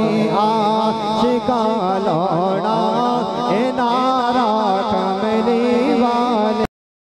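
A man singing a Punjabi naat through a microphone, a melismatic melody with wavering, ornamented held notes over a steady low drone. The sound cuts out abruptly about a second before the end.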